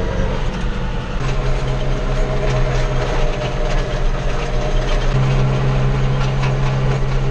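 Tractor engine running steadily while working the field, with a continuous mechanical rattle and clatter from the machinery.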